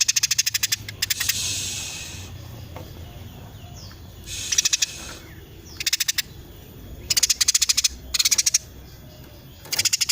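Female Eurasian tree sparrow chattering in quick, tight bursts of high chirps, about seven bursts of under a second each with short pauses between.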